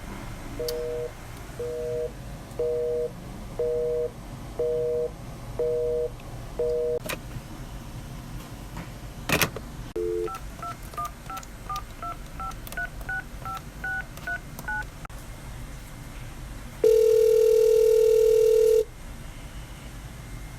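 Telephone line tones: a busy signal of short beeps repeating about once a second, a click, then a quick run of about fourteen touch-tone keypad beeps as a number is dialled, and finally one long, loud ringback tone lasting about two seconds.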